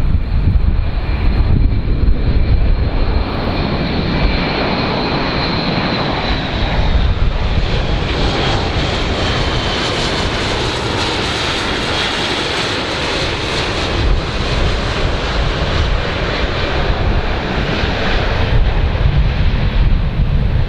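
Airplane engines running loud as the aircraft passes: a steady rush with a high whine that drops slightly in pitch about midway.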